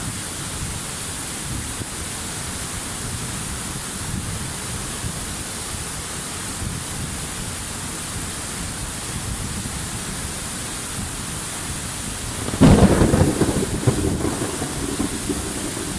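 Steady hiss of rushing water, then about three-quarters of the way through a sudden loud clap of thunder that rumbles and dies away over the last few seconds.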